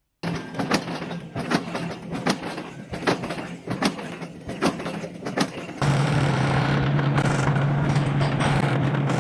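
A steady machine hum with a sharp knock repeating about every 0.8 seconds, then an abrupt change about six seconds in to a louder, steady machine drone with a strong low hum.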